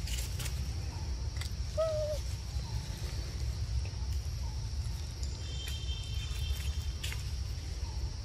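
Outdoor ambience: a steady high-pitched insect drone over a low rumble. About two seconds in comes one short arching animal call, with a few faint clicks scattered through.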